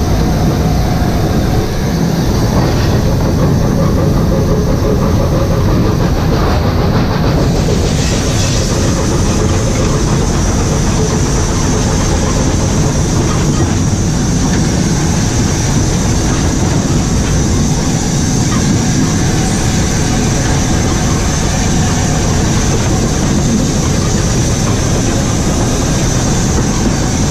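LNER Class A4 steam locomotive running on the line, heard from inside its cab: a steady, loud rumble and rattle of the moving engine on the rails.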